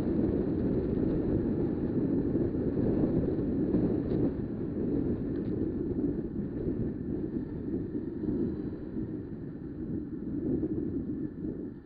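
Wind rushing over the microphone of a riding motorcycle, a dense low rumble that covers any engine note and eases off gradually in the second half.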